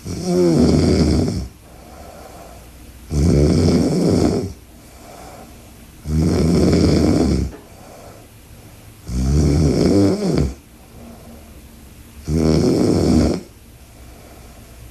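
A woman snoring loudly while asleep on her side: five snores about every three seconds, each lasting a little over a second.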